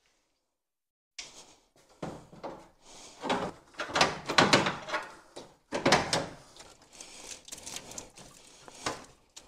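Aluminium radiator being worked down into a tight gap in the car's radiator support: a run of irregular metal knocks, clunks and scrapes, starting about a second in, with the loudest clunks in the middle.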